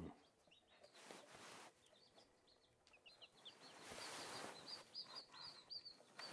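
Newly hatched Silkie chicks peeping: many short, high, downward-sliding peeps, thickest in the second half, with a few brief bursts of noise.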